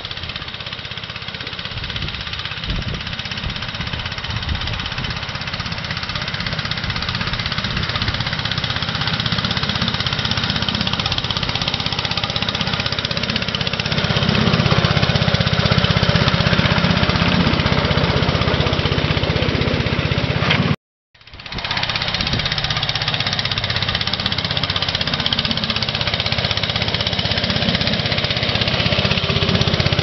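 Engine of a 7¼-inch-gauge miniature diesel-outline locomotive running as it pushes a snow plough along the rails, growing louder as it draws near. The sound cuts out for a moment about two-thirds of the way through.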